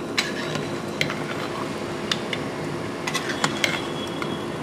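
Irregular sharp clicks and light metallic ticks, about eight in all and unevenly spaced, over a steady hum, around a pot of keema balls simmering in mutton gravy.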